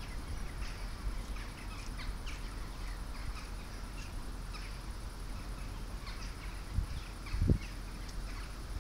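Small birds chirping at scattered intervals over a steady low outdoor rumble, with two brief low thumps near the end.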